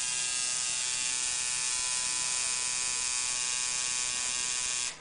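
Electric tattoo machine buzzing steadily as its needle inks lettering into the skin of a forearm, with an even, slightly nasal hum that stops abruptly just before the end.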